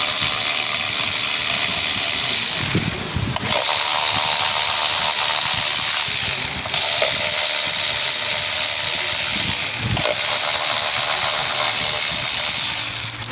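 Cordless electric ratchet spinning in reverse, backing out the 10 mm ignition-coil screws one after another. It runs in several stretches of a few seconds each, with short breaks between screws.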